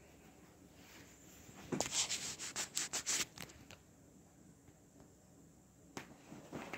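Plastic shopping bag crinkling and rustling as cats paw and tug at it: a run of sharp crackles lasting about two seconds, then a short rustle again near the end.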